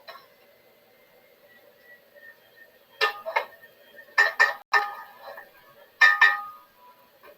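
Cookware and kitchen utensils clinking: sharp metallic knocks with a brief ring, in small clusters about three, four and six seconds in.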